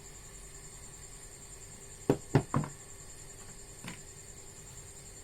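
Three sharp clicks in quick succession about two seconds in, then a fainter one near four seconds: hard tools or wire connections being handled on a repair bench, over a faint steady high electrical whine.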